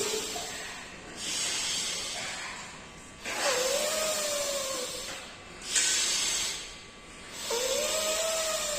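Deep, forceful breaths drawn in and pushed out through one nostril, the other held closed, in the left-nostril round of alternate-nostril pranayama. Five long rushing breaths come about every two seconds, and two of them carry a faint tone that rises and falls.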